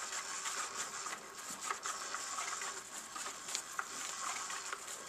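Undercover Mouse motorized cat toy running on its slow setting: a faint steady whir with irregular scratchy rustles and ticks as its wand moves about under the fabric cover.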